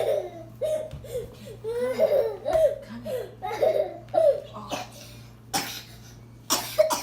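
A young child laughs in short, high-pitched bursts, then coughs a couple of times in the second half.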